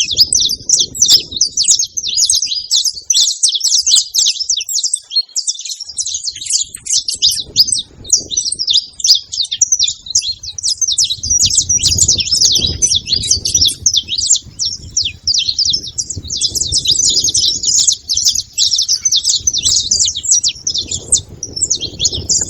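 Saffron finches, male and female, chirping and singing in a dense, unbroken stream of fast high notes, with a low rumble coming and going underneath.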